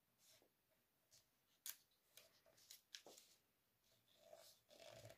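Faint rustling and crinkling of a sheet of paper being folded and creased by hand, with a few short crackles around the middle and a longer rustle near the end.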